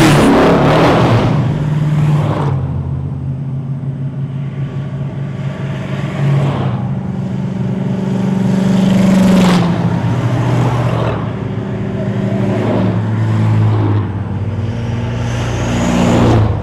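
A string of rat rod cars passing by on a highway one after another, each engine swelling and fading as it goes past, loudest near the start and again about halfway through.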